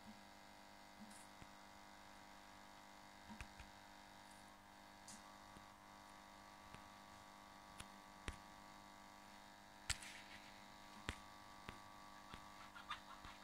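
Near silence: a faint steady hum with scattered small clicks, the loudest about ten seconds in.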